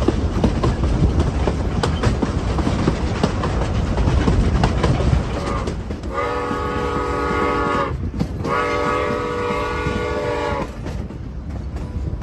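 Rumble and clickety-clack of a narrow-gauge steam train's wheels on the rails, heard from a car in the train. About six seconds in, the steam locomotive's whistle sounds two long blasts of about two seconds each, with a short gap between them.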